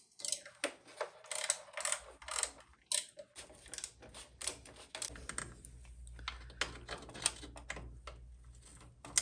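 Hand tools clicking and scraping on the 5 mm bolts and the plastic rear tire hugger of a motorcycle as the hugger is unbolted and taken off: a quick, irregular string of clicks and rattles. A low steady hum joins in about five seconds in.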